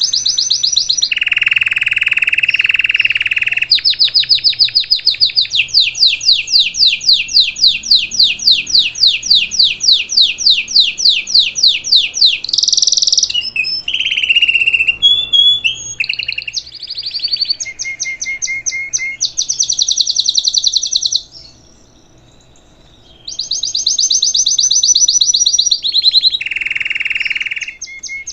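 A domestic Belgian canary of the salsa song type sings a long, loud song. It runs through fast repeated notes, high rolling trills and lower, fuller rolls, and pauses for about two seconds near the end before singing on.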